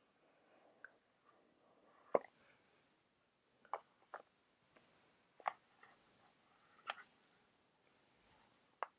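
Faint handling of an AirPods box and its packaging: about six scattered light clicks and taps, with soft rustling between them.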